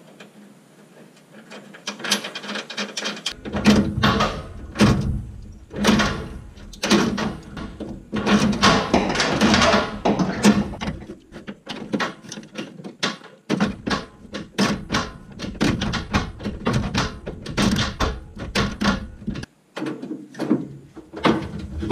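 Irregular knocks, clanks and clicks of a wrench on 3/8-inch mounting bolts and lock nuts as an auxiliary fuel tank's bolts are tightened from under a pickup bed, with scraping and handling noise in between.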